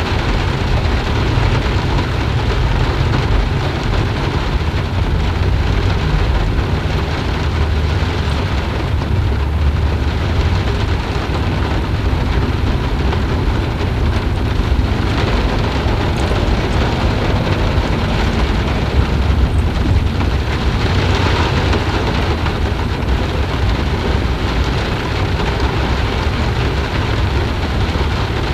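Steady heavy rain with a deep, continuous low rumble beneath it, swelling slightly about twenty seconds in.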